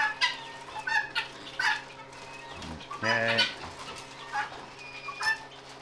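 Chickens clucking in short, scattered calls over a steady low hum.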